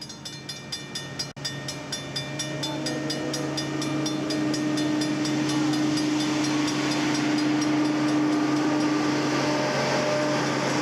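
Railroad crossing bell ringing rapidly while a convoy of railway track-maintenance machines approaches along the rails. Their diesel drone and rail noise grow louder over the first four seconds and then hold steady, while the bell fades under them.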